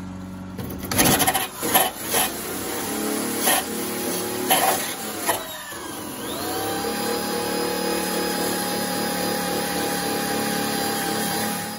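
Wire cup brush on a small die grinder scrubbing rust off the sheet-metal seam of a car's inner wheel well: a whine with rasping scrapes, in short uneven bursts for the first several seconds, then running steadily at a higher pitch until it stops near the end.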